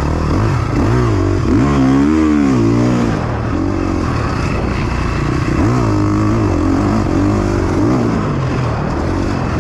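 KTM 350 XC-F's single-cylinder four-stroke engine revving up and down as the rider opens and closes the throttle, its pitch climbing and dropping several times.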